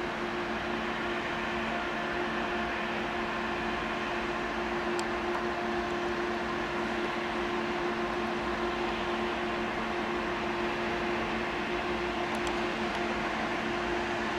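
ICE high-speed electric train moving slowly along the platform: a steady electric hum with two low tones over a constant rushing noise, growing slightly louder as it comes nearer.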